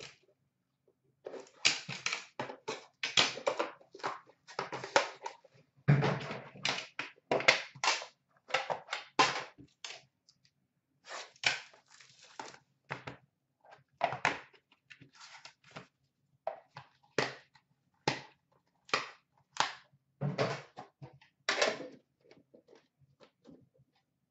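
Irregular clicks, taps and crinkling as an Upper Deck The Cup hockey card tin is opened and the pack inside is handled and unwrapped: metal tin, cardboard and wrapper.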